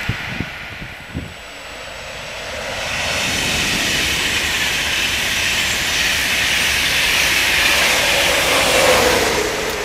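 Passenger train passing through the station at speed: a rush of wheel and air noise builds over a couple of seconds and holds, with a tone falling in pitch as it goes by near the end, then drops away. A couple of sharp knocks come in the first second or so.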